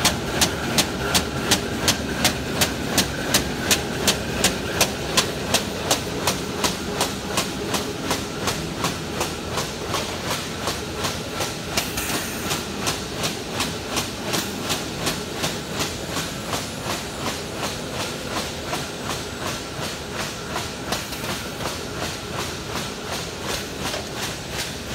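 Robinette Model 3300 HSU paper-bag tuber running, with a steady mechanical clacking about three times a second over a continuous machine hiss. The clacks grow gradually fainter, and there is a short hiss about halfway through.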